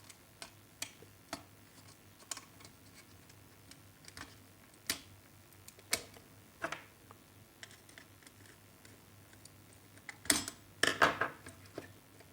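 Scattered small clicks and taps of a tool and wire against a plastic switch-socket unit as a wire is fastened to a terminal, with a louder cluster of clicks near the end.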